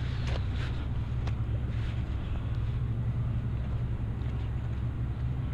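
Steady low rumble of wind on the microphone, with a few faint soft clicks and rustles in the first two seconds as hands move the landing net on its mat.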